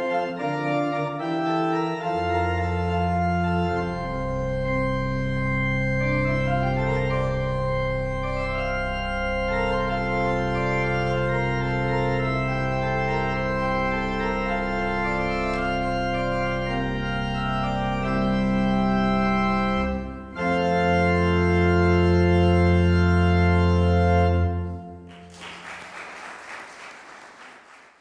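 Church organ playing sustained chords over a deep pedal bass. After a short break about twenty seconds in, it ends on a loud held final chord that cuts off, followed by a few seconds of scattered noise.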